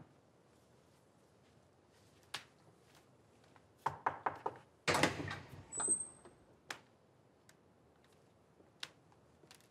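A door opening: a cluster of clicks and knocks about four seconds in, then a louder swinging rustle with a brief high squeak, followed by a few scattered taps.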